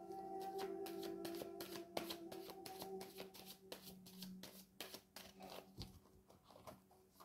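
A tarot deck being shuffled by hand: a quick, irregular run of soft card flicks and slaps, over quiet ambient background music with long held tones.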